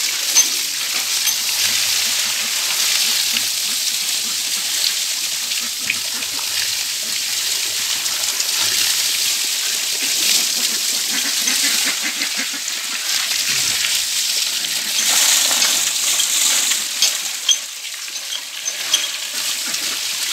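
A jet of water from a hose spraying onto a farm trailer's metal bed and sides: a steady hiss with splashing and splatter as it is rinsed clean of manure.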